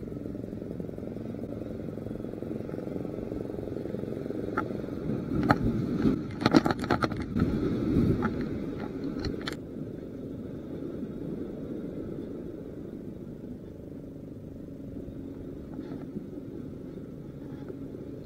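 Steady low rumble of wind on an action camera's microphone by the sea, with a stretch of clothing rustle and sharp knocks from about four and a half to nine and a half seconds in as the camera is jostled against the jacket.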